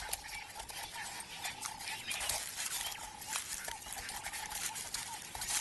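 Jackal pups scrabbling and feeding at an African wild dog's mouth on regurgitated food: a scratchy run of small irregular clicks and scuffs.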